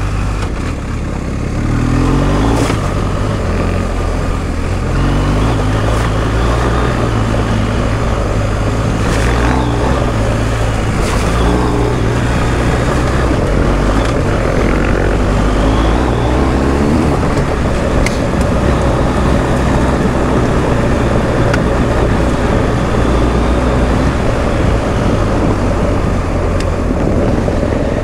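BMW R1250 GS Adventure's boxer-twin engine running under way on an off-road track, its pitch rising and falling with the throttle. Wind and tyre noise run under it, and a few sharp ticks come through.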